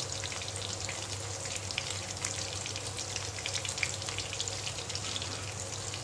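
Chicken pakoras deep-frying in hot oil in a steel kadai: a steady sizzle peppered with many small pops and crackles.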